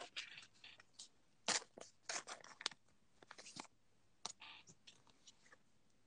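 Faint crinkling and rustling of a trading-card pack wrapper being handled, in short, scattered bursts.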